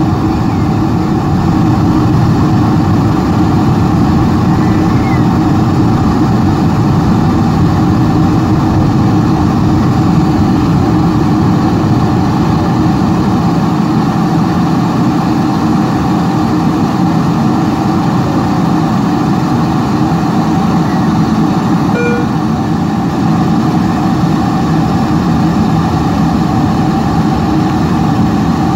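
Steady cabin noise inside a Boeing 747-400 airliner on approach with flaps extended: the engines and the rush of air over the airframe, with a low hum.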